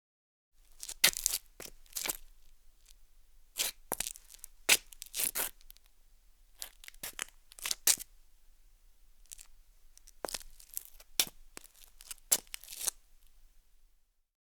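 A man's leather-soled shoes stepping on gritty concrete: each footfall is a sharp, crunchy scuff of grit under the sole. The steps come at an uneven pace with short pauses, starting about half a second in and stopping shortly before the end.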